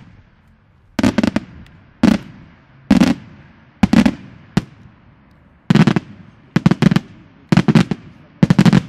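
Daytime display fireworks by Senatore Fireworks: aerial shells bursting in quick succession, about eight loud bursts at roughly one a second. Each burst is a short cluster of sharp cracks.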